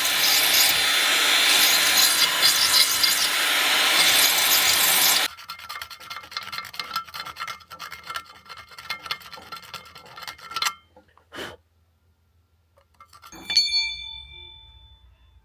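A hand tool scraping in rapid rubbing strokes while shaping the knife, loud for about five seconds, then softer and stopping. After a short pause, a single ringing metallic clink fades away near the end.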